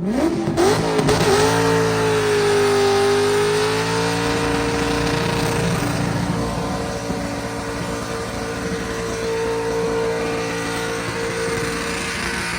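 Drag car's engine revs up sharply and is held at high, steady revs through a burnout, with the rear tyres spinning.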